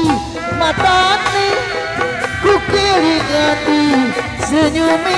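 Sundanese benjang ensemble playing an instrumental passage: a wailing, ornamented melody that bends in pitch, typical of the terompet reed pipe, over drums and repeated clashes of hand cymbals.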